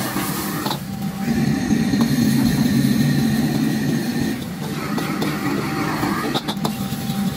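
Commercial gas wok burner running with a steady low rush, with beans hissing and sizzling in the steaming wok. A metal ladle knocks and scrapes against the wok a few times.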